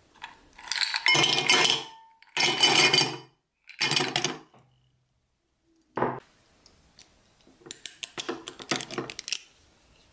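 Ice cubes dropped into a tall glass mug, clattering and clinking against the glass in three loud batches. A single knock follows, then a quicker run of lighter clinks.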